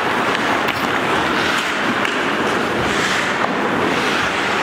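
Ice hockey rink sound during play: a steady noisy hiss with skate blades scraping the ice in brief swishes and a few faint clicks of sticks and puck.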